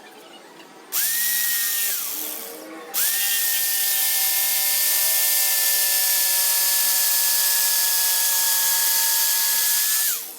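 A Hoyoma 650 W electric jigsaw cutting a 45-degree bevel in wood. Its motor whines briefly about a second in and winds down, then starts again about three seconds in and runs at a steady pitch until it stops near the end.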